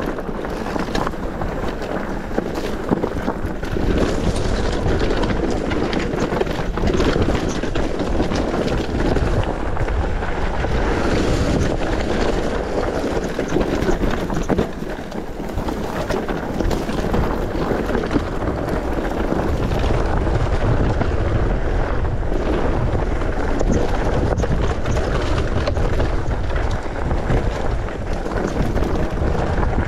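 Wind buffeting the microphone of a camera on a mountain bike riding downhill, with the tyres rumbling over rough trail and frequent small knocks and rattles from the bike.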